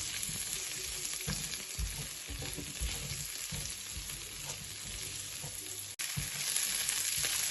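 Sliced onion and garlic sizzling steadily in hot oil in a pan, with a utensil stirring and knocking against the pan now and then.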